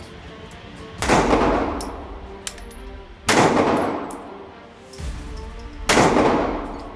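Three 9mm pistol shots from a Taurus G3, spaced two to three seconds apart, each with a long echo that dies away. Background music runs underneath.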